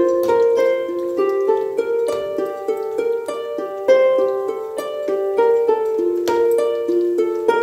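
Background music: a quick melody of short plucked-string notes, several a second.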